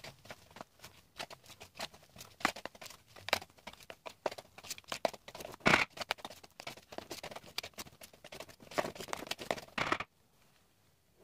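A hand utensil scraping and clicking against a glass mixing bowl while whipped egg whites are folded into a thick mascarpone and egg-yolk cream, in quick irregular strokes. It stops suddenly about ten seconds in.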